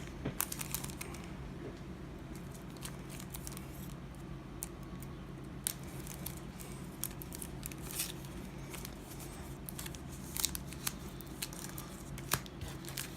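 Yu-Gi-Oh trading cards being handled and flipped through: a scatter of small, sharp clicks and snaps of card stock over a steady low hum.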